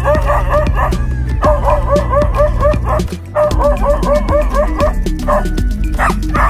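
A dog barking at a leopard in rapid runs of short barks, breaking off briefly between runs. Background music with a steady bass and beat plays under it.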